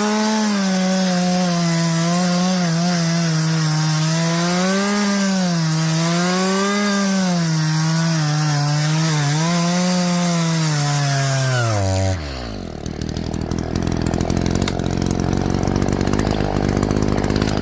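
Echo chainsaw cutting through wood at high revs, its pitch wavering as the chain loads up in the cut. About twelve seconds in, the pitch drops sharply and the saw falls back to a lower, uneven idle.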